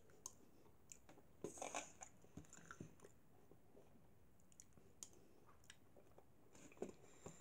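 Faint chewing of a mouthful of soft macaroni and cheese, with small scattered mouth clicks and smacks. A light click of the metal spoon in the bowl comes near the end.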